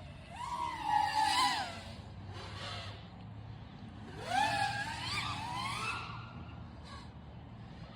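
Five-inch FPV quadcopter's brushless motors and propellers whining, the pitch rising and falling with the throttle, with two louder throttle surges, one about half a second in and one about four seconds in.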